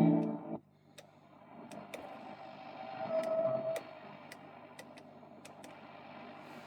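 Radionette Menuett valve radio being tuned on shortwave: a station's music cuts off abruptly about half a second in, leaving faint static and hum with scattered clicks and a short whistle about three seconds in as the dial passes a signal. Tuning is delicate on this set's shortwave band.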